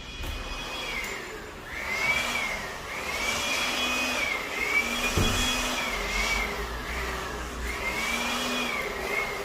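A small electric motor whining, its pitch rising and falling again and again, about once a second, as its speed changes.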